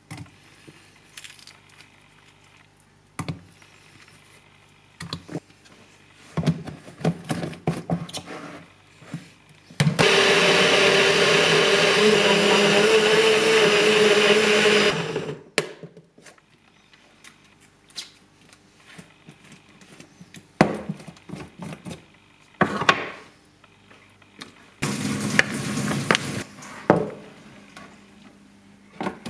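A NutriBullet blender runs for about five seconds, a steady whir with a slightly wavering pitch, as it blends greens and banana. Scattered knocks and clatter come before and after it, as the cup and ingredients are handled on the counter.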